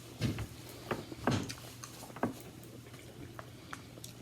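A few soft knocks and light clatter, four of them in the first two and a half seconds, then only faint ticks, over a steady low hum: things being handled and set down at a dinner table.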